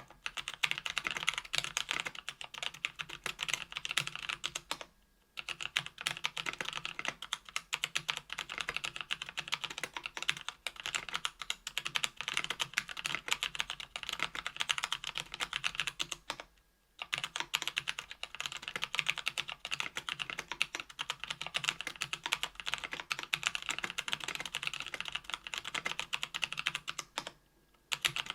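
Typing on a KBDfans Tofu 65% aluminum mechanical keyboard with stock Kailh Speed Copper 60 g tactile switches on an aluminum plate, with GMK keycaps. The keystrokes come quickly and steadily, with short pauses about five, seventeen and twenty-seven seconds in.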